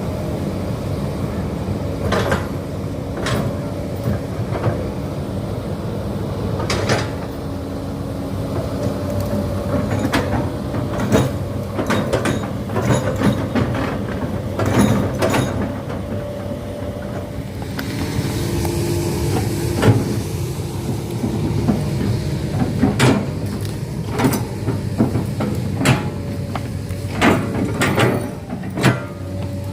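Komatsu PC200-8 hydraulic excavator's diesel engine running steadily under work, with frequent sharp clanks and knocks from the machine as it works.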